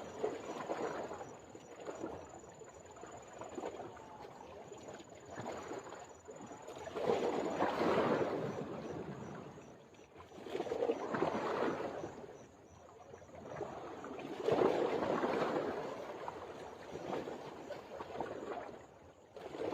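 Water lapping and sloshing in slow swells, rising and falling about every three to four seconds.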